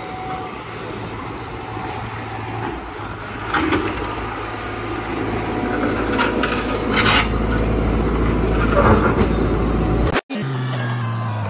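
Diesel engine of a Tata Hitachi Zaxis 120H excavator running steadily close by, with stones and rocks clattering and knocking as an excavator bucket digs through rubble. A few sharper knocks come in the middle and toward the end, and the sound cuts off suddenly shortly before the end.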